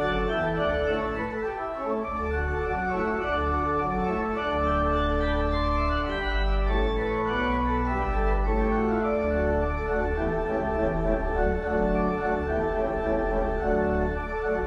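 Organ music: slow, sustained chords that change every second or two over held low bass notes.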